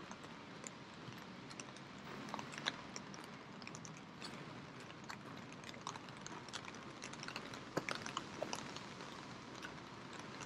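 Steady rain hiss with scattered sharp ticks and taps of drops, coming irregularly and most thickly around the middle.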